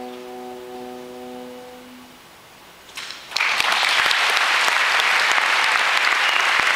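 The orchestra's final held chord, several steady tones, fades away over about two seconds. After a brief hush the audience breaks into loud applause about three seconds in, which continues to the end.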